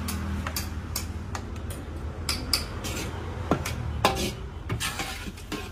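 An oversized metal ladle scraping and knocking against a large steel wok as fried rice is scooped out, making a series of sharp clinks and scrapes. The loudest knocks come about three and a half and four seconds in. A low steady hum runs underneath.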